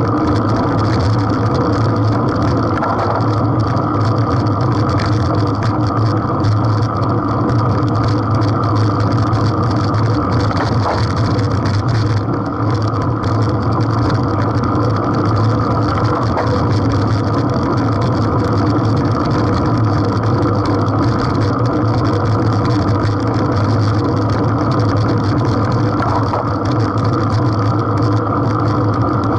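Steady wind rush and road rumble on a bicycle-mounted action camera while riding on asphalt, a continuous low rumbling noise.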